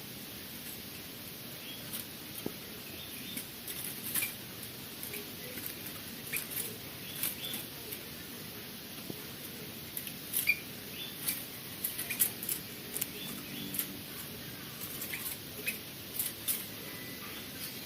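Small birds giving short, high chirps at irregular intervals, mixed with sharp clicks, busier in the second half.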